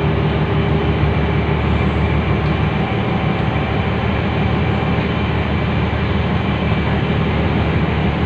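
Steady low drone of a passenger ferry's engines, with an even rushing noise over it.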